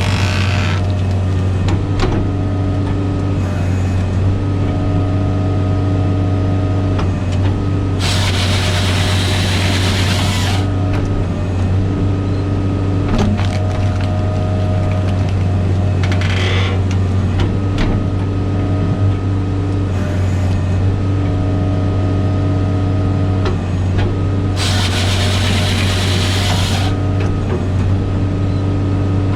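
Bobcat Toolcat's diesel engine running steadily under hydraulic load, with a whine that comes and goes, while a Halverson HWP-120 firewood processor cycles. Two longer harsh bursts come about 8 and 25 seconds in, and shorter ones near the start and about 16 seconds in.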